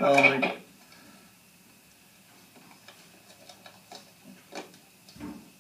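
A brief voice in the first half-second, then near-quiet with a few faint, irregular clicks and ticks and a short low sound near the end.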